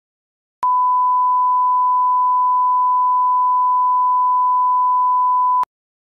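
A 1 kHz test tone played over colour bars: one steady pure beep lasting about five seconds, starting and stopping with a click.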